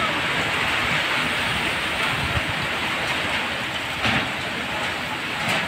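Heavy typhoon rain and strong wind: a steady, dense rush of noise with two brief louder swells, about four and five and a half seconds in.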